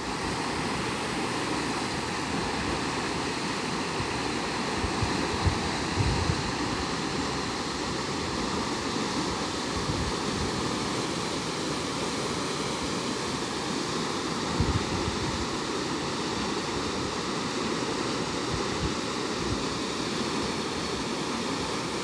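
Floodwater rushing in a steady, even stream, with a few brief low thumps on the microphone.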